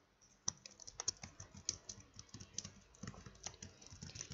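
Typing on a computer keyboard: a quick, irregular run of faint keystroke clicks, several a second, starting about half a second in.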